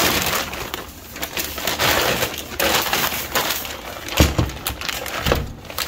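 Packaging rustling and being handled as a boxed steering gearbox is unpacked, with two dull thumps about four and five seconds in.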